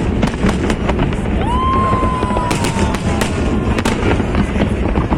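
Fireworks and firecrackers going off in a dense, continuous barrage of bangs and crackles. A long whistle from a whistling firework starts about a second and a half in.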